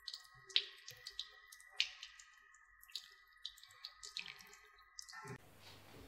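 Water dripping irregularly from the drainage holes of a bonsai pot onto a hard surface after watering, in faint separate drops. The water passing freely through the soil into the drainage holes shows that the soil mix drains well. About five seconds in the drops give way to a steady faint hiss.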